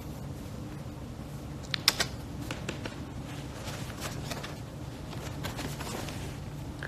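Smartphone being handled close to its microphone: scattered light clicks and taps, with a few sharper clicks about two seconds in, over a low steady hum.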